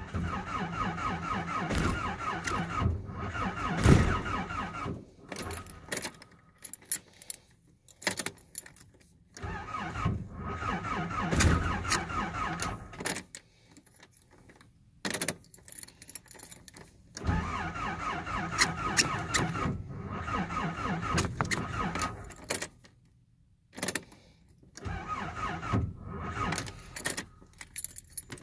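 Nissan 720 pickup's starter cranking the engine in four separate tries of a few seconds each, with a quick even chug and a whine. The engine never catches: a failed cold start.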